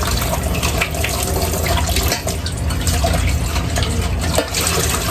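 Water running from a kitchen faucet into the sink during dishwashing, with scattered short clinks and knocks.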